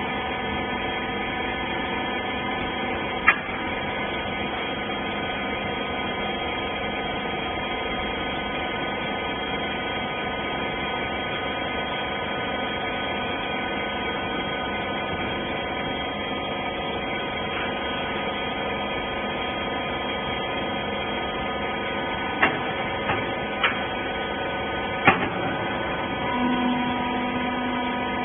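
Rag compression baler running: a steady mechanical hum made of several steady tones, with a few sharp clicks or knocks, and a further steady tone joining near the end.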